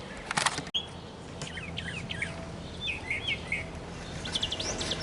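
Songbirds chirping: short whistled notes that swoop up and down, coming in small groups every second or so, over a faint steady low hum. A brief noise sounds about half a second in.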